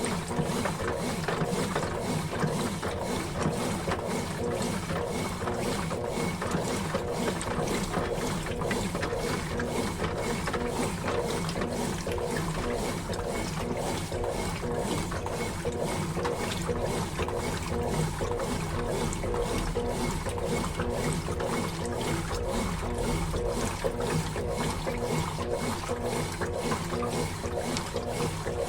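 Consul Facilite 11 kg (CWG11) top-loading washing machine agitating its rinse water: the motor and agitator drive run with an even, regular ticking over the churning water.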